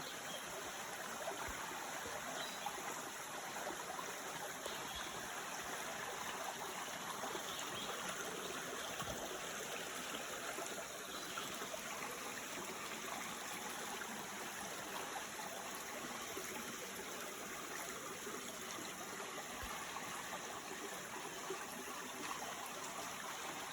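Steady, even rushing noise outdoors in the woods, with no breaks or distinct events.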